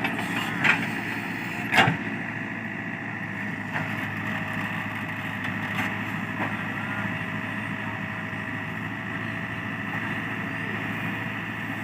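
Diesel engine of a JCB 3DX backhoe loader running steadily while it works, with a few sharp knocks, the loudest about two seconds in.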